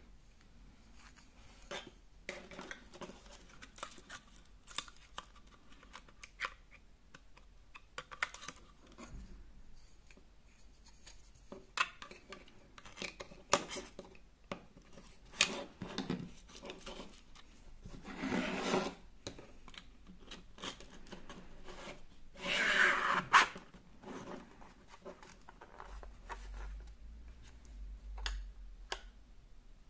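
3D-printed plastic parts being handled and slid together by hand: scattered clicks, taps and rubbing. Twice in the second half there is a longer scraping slide, the second one the loudest.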